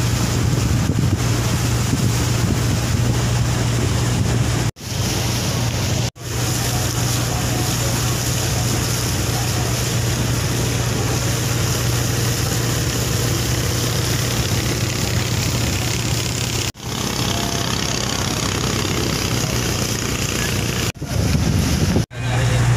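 A wooden river taxi boat's engine drones steadily under a constant rush of water and wind, heard aboard the moving boat. The sound breaks off abruptly for a moment several times.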